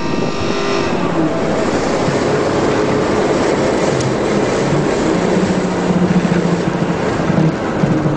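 Mitsubishi race car's engine heard from inside the cabin under hard driving, its pitch falling near the start and then climbing and dropping with gear changes, over steady road and wind noise.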